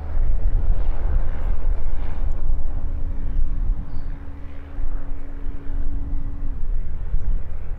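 Electric RC model plane's motor and propeller humming at a steady pitch, under a loud, uneven low rumble. The hum cuts off about six and a half seconds in.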